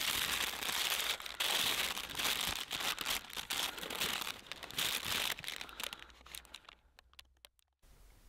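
A folded paper map rustling and crinkling as it is unfolded and handled, a dense crackle that dies away about six seconds in, leaving a few faint clicks.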